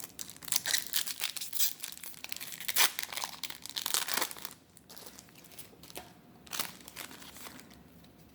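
Crinkling and tearing of a foil Yu-Gi-Oh booster pack wrapper as a pack is opened, dense for the first four seconds or so. Softer scattered rustles of the wrapper and cards being handled follow.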